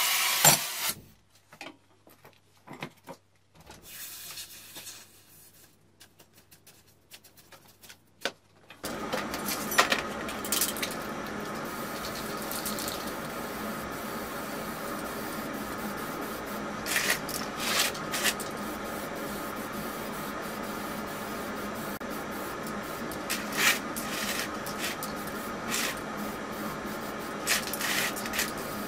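Aerosol spray-paint can hissing in several short bursts as black paint is sprayed onto steel bars, over a steady background hum. A gas torch hisses for about the first second, then cuts off.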